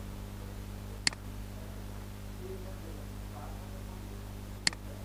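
Two sharp computer mouse clicks, about a second in and near the end, over a steady low electrical hum.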